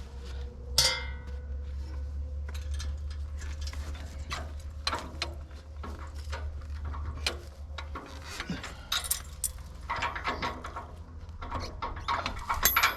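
Steel hitch pin and linkage parts being worked by hand: repeated metal clicks, taps and clinks, with one ringing clink about a second in, over a low steady rumble.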